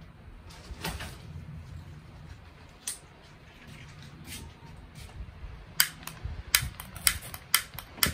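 Sharp clicks of hard objects knocking together. A few come singly, then a quick irregular run of about ten near the end.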